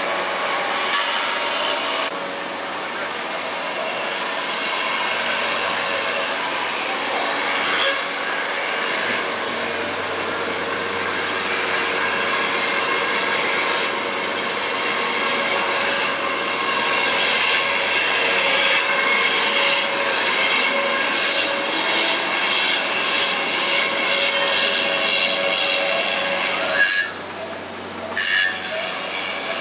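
Hiteco 20 kW spindle of a gantry 5-axis CNC router milling a foam boat hull mould: a steady high-pitched whine from the spinning cutter over a hiss of foam being cut, with a brief drop near the end.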